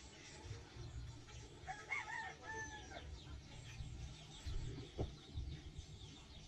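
A rooster crowing once, about two seconds in, a single call lasting just over a second.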